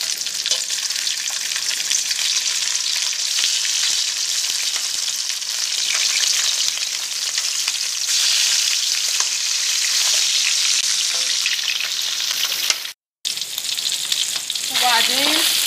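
Pieces of half-boiled meat sizzling steadily as they fry in hot oil in a baking tray.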